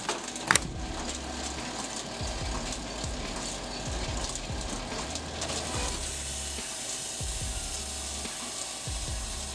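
Palix KS 45S firewood processor running: a steady mechanical clatter and hiss, with one sharp click about half a second in.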